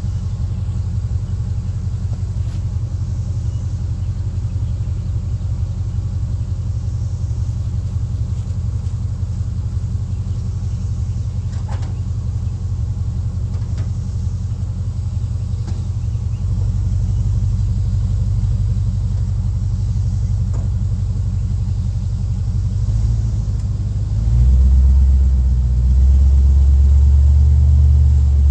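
1965 Chevy C10 pickup's engine idling through its new mufflers, a steady, quiet exhaust rumble. The rumble gets louder about 16 seconds in and again about 24 seconds in.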